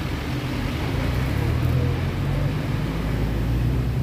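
Road traffic: a vehicle engine running with a steady low rumble that grows a little louder about a second in.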